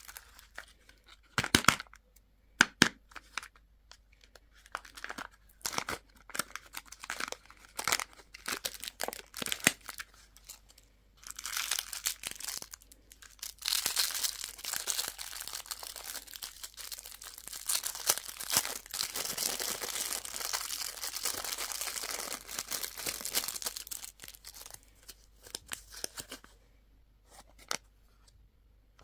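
Wrapper being handled and torn open by hand: scattered sharp crinkles and snaps at first, then a long stretch of continuous tearing and crinkling through the middle, dying away to a few light clicks near the end.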